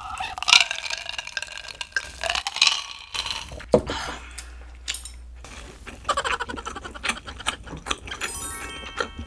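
Drinking from a glass of iced drink, with ice clinking against the glass, then a knock as the glass is set down on the wooden table about four seconds in. Small clicks and mouth sounds follow, and near the end a short edited-in sound effect of quickly stepped electronic tones.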